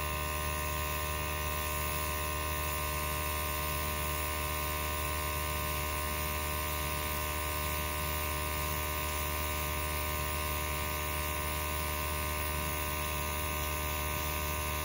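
Steady electrical hum with many overtones, unchanging in pitch and level.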